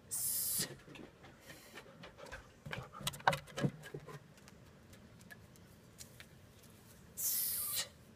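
Two sharp breath exhalations of about half a second each, one just after the start and one near the end, from a woman doing kettlebell goblet squats. In between, a dog right by the microphone makes a quick run of clicks and rustles.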